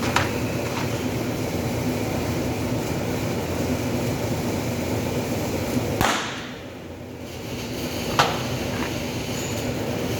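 Stud welder firing studs onto sheet-steel breaker panel doors: three sharp snaps over a steady workshop hum, one at the start, one about six seconds in and one about two seconds later.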